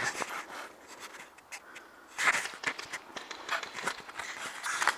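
Footsteps crunching through snow at a run, in irregular bursts with a quieter pause about half a second in, then picking up again about two seconds in.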